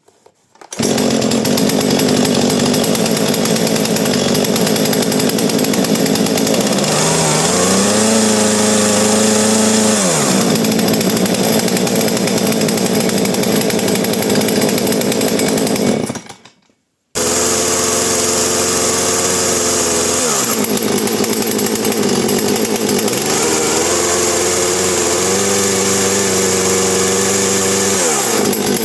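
Husqvarna 236 two-stroke chainsaw running, idling and being revved up and back down several times. About halfway the sound fades and cuts out for under a second before the saw is heard running again.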